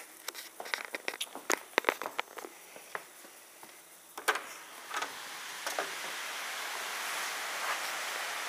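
Light clicks and rattles of blind slats and a door handle being worked, with a louder clack about four seconds in as the door opens. After that, a rush of wind grows steadily louder.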